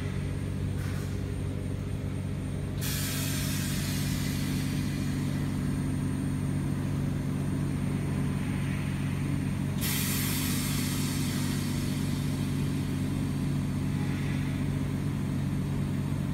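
Oxygen-fed ozone generator setup running with a steady low hum, while gas bubbles up through a tall column of water. A hiss of gas switches on abruptly about three seconds in and changes abruptly about ten seconds in.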